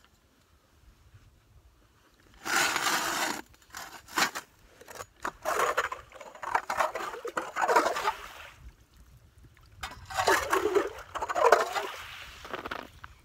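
Hand-cranked ice auger drilling through the ice, its blades cutting in uneven stretches. The cutting starts about two and a half seconds in, stops briefly around nine seconds in, then goes on.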